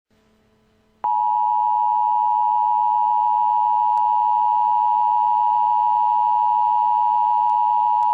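Emergency Alert System attention signal: a loud, steady two-note tone that starts abruptly about a second in, after faint hiss, and holds without change.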